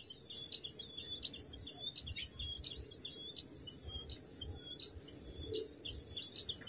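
Birds chirping in a quick run of short repeated calls over a steady high-pitched insect drone.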